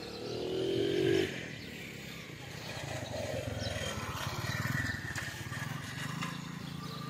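A small motor vehicle's engine running close by, with street noise around it; a louder pitched sound in the first second is the loudest part.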